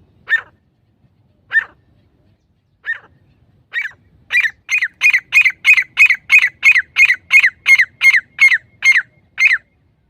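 Grey francolin calling: four separate sharp notes spaced about a second or more apart, then from about four seconds in a fast run of repeated notes, about three a second, that stops suddenly near the end.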